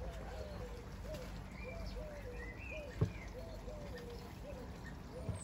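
A pigeon cooing over and over in short rising-and-falling notes, with a faint higher bird call about two seconds in and a single knock about three seconds in.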